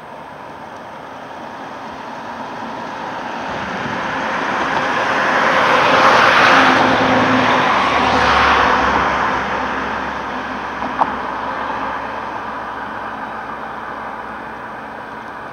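A vehicle passing by: a rushing noise that swells to a peak about halfway through and then fades away, over a low steady engine hum that comes in around the middle. A single sharp click sounds near the end.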